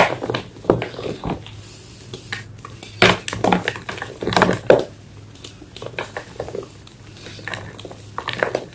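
Block of gym chalk being crushed, with clusters of sharp, crisp crunches and crackles in an uneven rhythm.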